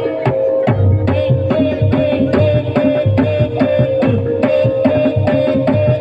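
Live Javanese gamelan music for an ebeg dance: hand drums and struck bronze kettle gongs play a steady, driving beat, with a ringing metal tone held underneath.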